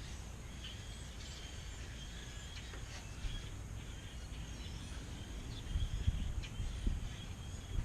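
Songbirds chirping in short, scattered calls over a steady low rumble of outdoor background noise.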